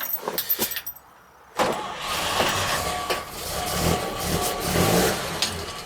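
A few light clicks, a brief hush, then the 1957 Chevrolet 3100's original stovebolt inline-six engine starts running about one and a half seconds in, its speed rising and falling briefly near the end.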